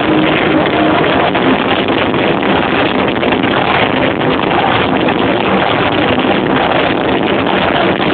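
Heavy-metal electric guitar solo played loud through a concert PA, recorded on an overloaded camera microphone, so it comes out as a harsh, distorted wash in which the held notes barely show.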